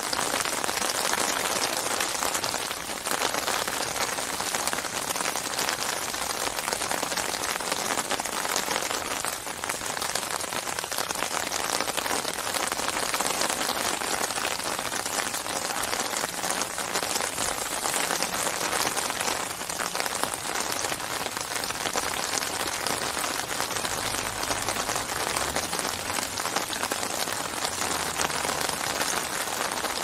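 Steady rain falling on open lake water: a dense, even hiss of countless small drops splashing on the surface.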